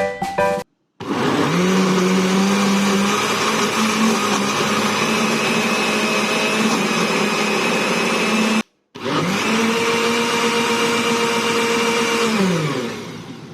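Electric kitchen blender motor spinning up and running steadily on a mix. After a brief break it runs again, then winds down near the end.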